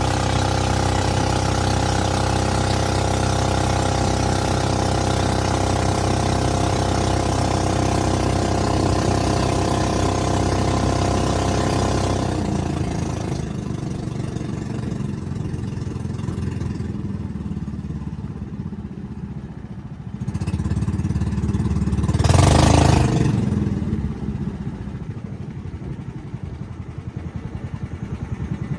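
Small 13 hp boat engine running steadily at speed, then throttled down about twelve seconds in to a slower, quieter putter. About two-thirds of the way through, a brief loud rush of noise rises over it, and near the end the engine's slow individual pulses can be heard.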